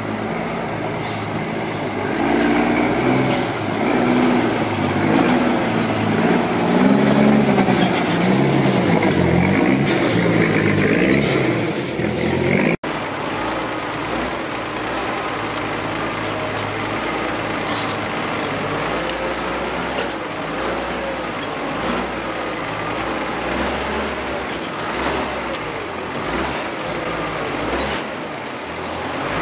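Loaded REO 6x6 army truck's engine running under load as it drives on a dirt track, its pitch rising and falling. After a break about a third of the way in, the engine and drivetrain are heard from beneath the chassis as the truck keeps moving, a steadier running noise.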